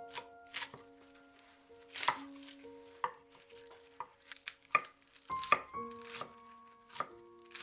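Large kitchen knife chopping green onions on a wooden cutting board: slow, uneven knocks of the blade through the stalks onto the board, one or two a second, over quiet background music with held notes.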